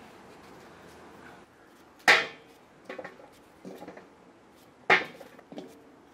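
Knife cutting raw plantain into small pieces over a stainless steel bowl: sharp clinks as the knife and pieces hit the steel, two loud ones about two and five seconds in and softer taps between.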